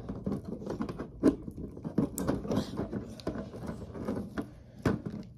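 Plastic action figures being handled on a toy wrestling ring: irregular light clicks, taps and rustles as the figures knock together and against the ring, with sharper knocks about a second in, around two seconds in and near the end.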